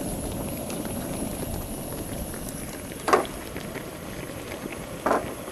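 Thick coconut milk bubbling at a boil in a wide uruli pot, a steady simmering fizz, with two brief louder pops about three and five seconds in.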